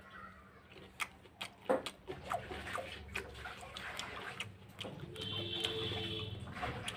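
Irregular crunching and clicking of someone biting and chewing raw food, with a brief steady tone about five seconds in.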